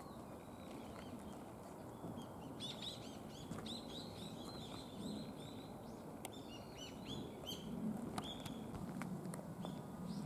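Small birds chirping in a rapid run of short, high twittering notes, thickest through the middle of the stretch, over faint steady outdoor background noise.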